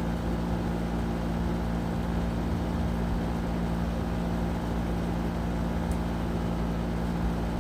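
A steady, unchanging low mechanical hum, like a motor or fan running.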